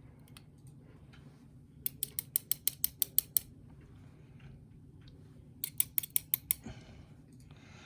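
Two quick runs of sharp little metal clicks, about seven a second: the first about two seconds in, the second near six seconds. They come from small tools working on the pins and springs of a lock cylinder while it is being taken apart.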